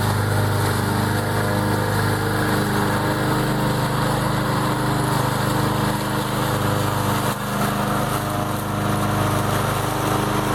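Walk-behind rotary lawn mower's small engine running steadily at a constant speed.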